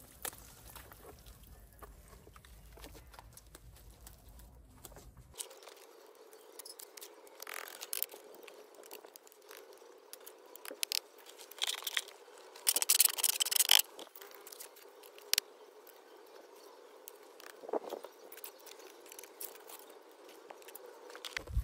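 Wet cement mix sliding out of a bucket, then a hand trowel scraping and smoothing wet cement in a wooden form. Scattered scrapes and clicks, with one loud stretch of scraping a little past halfway.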